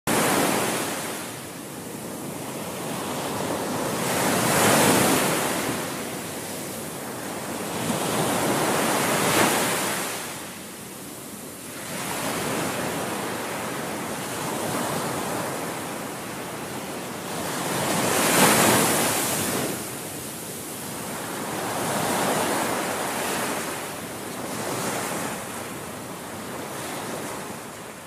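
Sea waves washing in: a rushing noise that swells and fades every few seconds.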